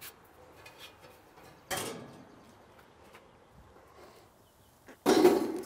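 Ceramic pizza stone being handled: a short scrape about two seconds in, then a louder knock and scrape near the end as the stone is set down on a hard surface.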